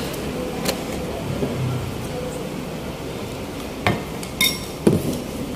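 Metal spoon clinking and knocking against plates, a few separate strikes in the second half, one ringing briefly, over steady room noise.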